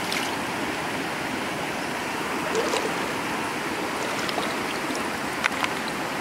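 Shallow stream running steadily over rocks. A few light clicks come through as shells are rubbed and rinsed by hand in a clay bowl of water.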